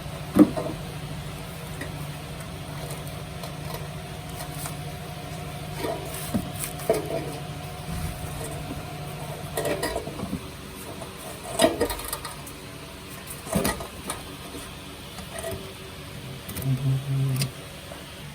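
Metal clanks and knocks as a rusted rear exhaust muffler is worked off its rubber hangers under a car, over a steady low hum. A brief low buzz comes near the end.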